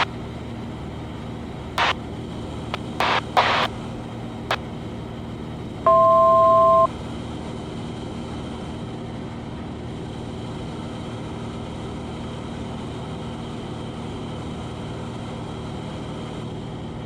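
Cessna 182's piston engine droning steadily in flight. A few short crackles come in the first few seconds, and a loud two-tone electronic beep lasts about a second around six seconds in.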